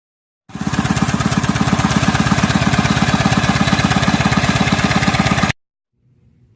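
Small engine running steadily with an even, fast pulsing beat. It starts about half a second in and stops abruptly about five and a half seconds in.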